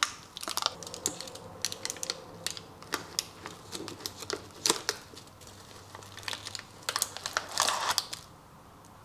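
Knife and cake server cutting through a baked meringue topping and scraping under a slice of layered cake, with the baking paper beneath crinkling: irregular crunches and crackles that stop shortly before the end.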